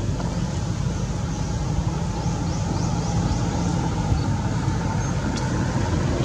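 Steady low outdoor rumble, with a few faint short high chirps in the middle.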